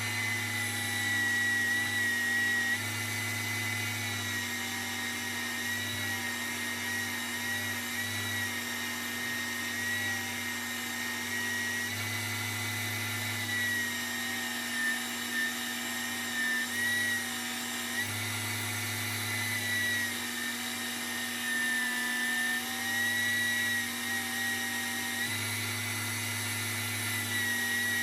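Small wood lathe's electric motor running steadily with a high whine and a low hum, the pitch dipping slightly now and then as the work is loaded.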